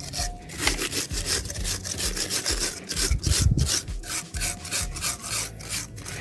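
Rapid back-and-forth scraping strokes, about four a second, as a hand tool scrubs old silicone sealant off the mating surface of a Yamaha Banshee 350 engine.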